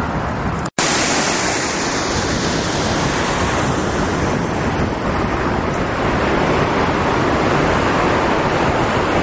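Steady rushing of floodwater, a dense even noise that starts after a brief break under a second in.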